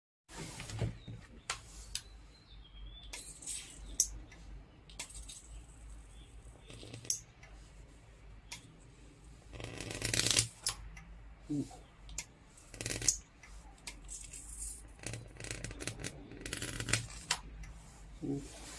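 High-voltage arc from a flyback transformer driven by a ZVS driver, drawn out with a screwdriver: irregular sharp snaps and crackles, with a louder sustained hissing flare about ten seconds in as the arc turns into flame. The transformer is burning out because the voltage is too high.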